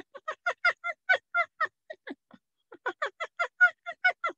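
A man's voice imitating a pack of spotted hyenas laughing: rapid, high-pitched giggling calls, about five a second, in two runs with a short break a little over two seconds in.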